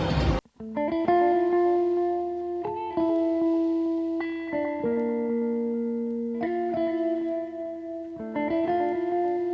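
Background music: a clean guitar picking notes and chords that ring out, restruck every second or two, starting after an abrupt cut just under half a second in.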